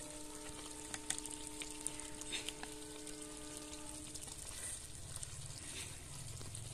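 A few light clinks of a metal ladle against a ceramic plate as chicken curry is served, over a steady held tone with several pitches that stops about four seconds in. A low rumble comes in near the end.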